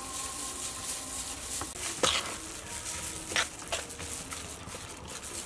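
Cooked rice being mixed and squeezed by a hand in a clear plastic glove in a stainless steel bowl: a steady rustling and squishing, with two sharp clicks about two seconds and three and a half seconds in.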